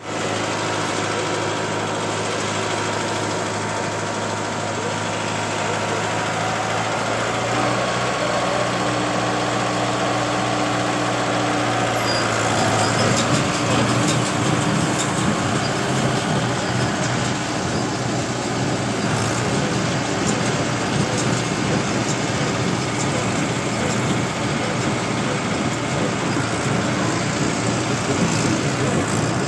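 Tractor's diesel engine running steadily, turning rougher and a little louder about twelve seconds in.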